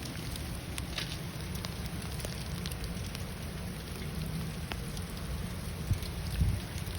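Hail falling steadily: an even rushing hiss with many scattered sharp ticks of hailstones striking hard surfaces, and a few low thumps near the end.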